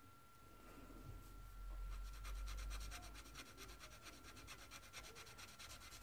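Felt tip of an alcohol marker (Winsor & Newton Promarker) scratching over kraft paper in quick back-and-forth colouring strokes, about ten a second, starting about two seconds in.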